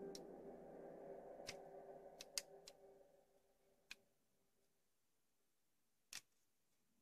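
Soft ambient background music fading out over the first three or four seconds, with sharp clicks of a plastic transforming-robot figure's joints and parts being moved and snapped into place, about seven clicks, the loudest about two and a half seconds in.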